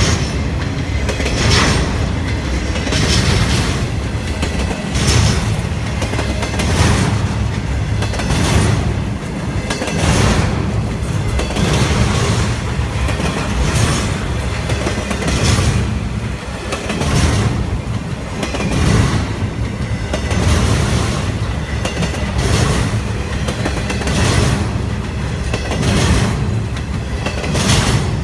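Empty intermodal freight cars rolling past close by: a steady rumble of wheels on rail with repeated sharp clacks, roughly one every second or two, as the wheelsets run over the track.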